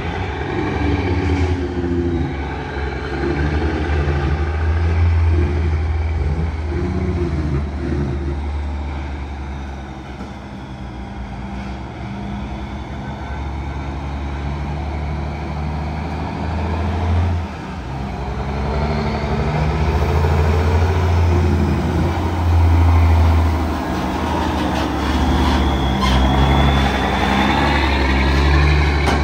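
Diesel tractor-trailer engine pulling a loaded flatbed, its pitch rising and falling with the throttle, growing louder as the truck comes close near the end.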